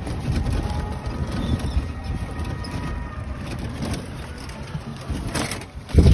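Motorised rickshaw driving along a road, its body and fittings rattling over the surface, with a loud low thump near the end.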